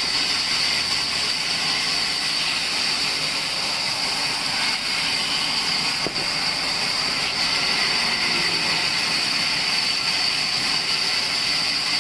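Large wood-cutting band saw running steadily: a constant mechanical hiss, with the blade running free as the log is brought up to it.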